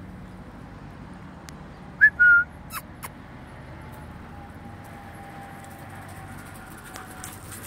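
A person whistling two quick notes about two seconds in, a short upward one then a brief held one, loud and close. Steady outdoor background noise lies underneath.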